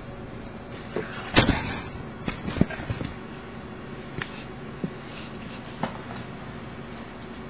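A sharp, loud knock about a second and a half in, then a few lighter knocks and thumps over the next couple of seconds and a scattering of small ones after that, over a steady room hiss.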